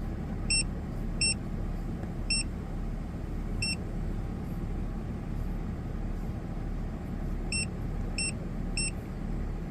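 Ford FG2 Falcon engine idling steadily at normal operating temperature, running smoothly now that its P2110 throttle-body fault has been fixed. Seven short, high electronic beeps come at irregular intervals over the idle.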